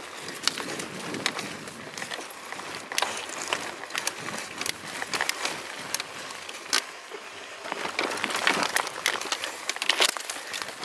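Mountain bike rolling along a dirt forest trail, heard from a camera mounted on the bike: a steady rush of noise with frequent sharp rattles and knocks as it goes over bumps, busiest in the last few seconds.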